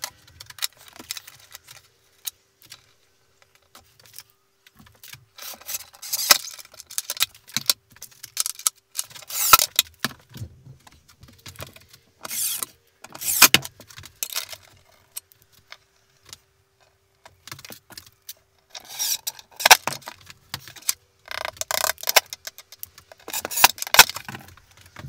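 Metal latch hardware and screws being handled and fitted against a wooden crate lid: irregular clinks, rattles and short scrapes that come in bouts every few seconds.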